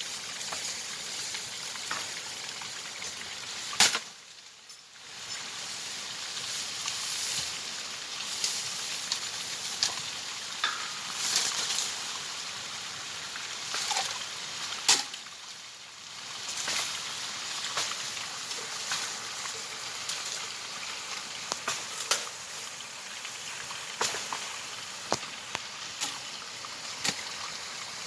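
Running water rushing with a steady hiss, broken by scattered clicks and knocks and two short lulls.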